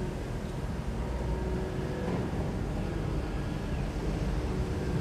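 Kobelco SK200 long-reach excavator's diesel engine running steadily under working load as the long arm swings and lifts the bucket, a dense low rumble with a few faint steady tones over it.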